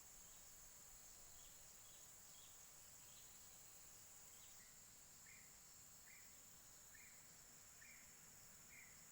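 Faint rural ambience: a steady high-pitched insect drone, with short chirps repeated about once a second, coming a little more regularly in the second half.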